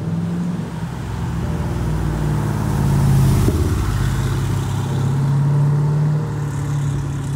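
Chevrolet SS's 6.2-litre LS3 V8 running under way, growing louder to a peak about three seconds in and then holding a steady drone.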